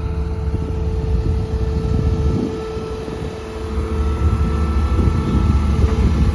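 Caterpillar 313F excavator's diesel engine running steadily, a low rumble with a constant whine over it. It dips slightly about halfway through, then comes back up.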